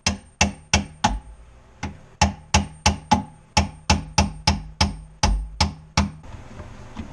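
Rapid hammer blows, about three a second with a short break about a second in, stopping about six seconds in: knocking out the dishwasher inlet plug on an InSinkErator Badger 15SS garbage disposal.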